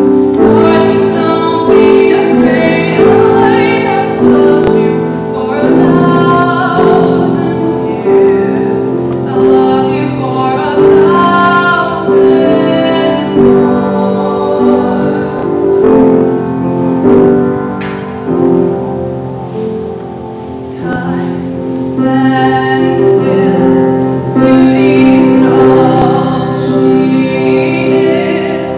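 A woman singing a slow song solo into a microphone, over a steady instrumental accompaniment of held low notes.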